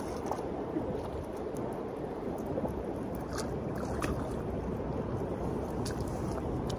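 Shallow river running over stones: a steady rush of water, with a few faint ticks over it.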